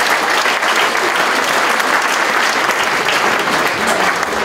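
Audience of several dozen people applauding, a steady dense clapping.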